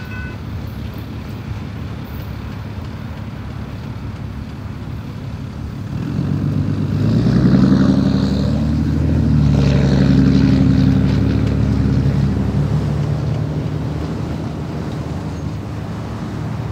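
Freight train rumbling past, with the last of a multi-note train horn chord cutting off at the start. About six seconds in, a diesel locomotive's engine drone builds, a stack of low tones that rises slightly and then fades slowly toward the end.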